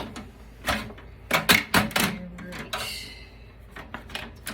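Clattering knocks and clacks from a desktop computer case and its parts being pried and pulled apart by hand: several sharp clacks in quick succession, then a short scrape.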